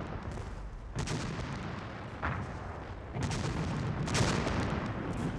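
Artillery and gunfire, four shots roughly a second apart, each trailing off into a low rumble.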